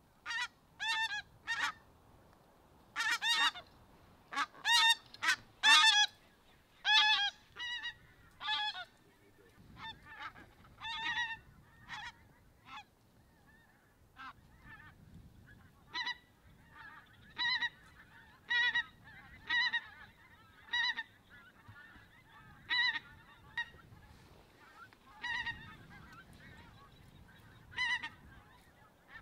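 Goose honking: short, high, repeated honks, a loud dense run in the first nine seconds or so, then quieter single honks about one a second.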